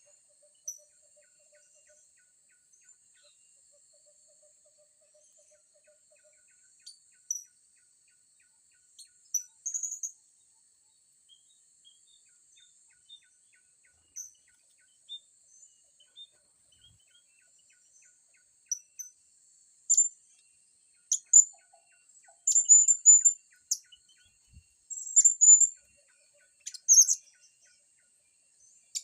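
Blue-crowned hanging parrots giving short, high, shrill chirps, scattered at first and coming thick and fast in the last nine seconds or so.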